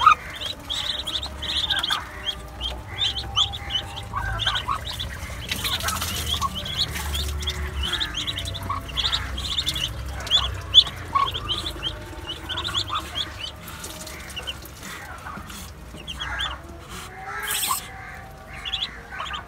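Muscovy ducklings peeping continually, many short high-pitched peeps overlapping, with some lower fowl calls mixed in. A single sharp knock stands out about halfway through.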